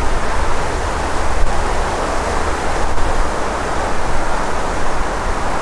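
Wind buffeting the microphone: a loud, steady rushing noise with an uneven low rumble.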